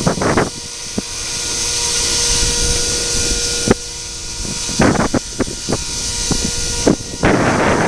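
Radio-controlled helicopter in flight, its motor and rotor giving a steady drone and hiss with a fixed pitch, while gusts of wind buffet the microphone in short blasts and more strongly near the end.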